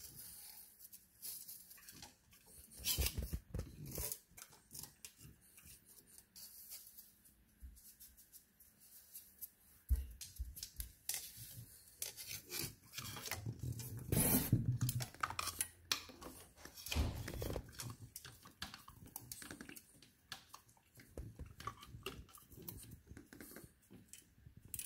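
French bulldog gnawing and chewing on a wooden ruler: irregular clicks and crunches of teeth on wood, with scraping and now and then a louder knock as the ruler moves against the floor.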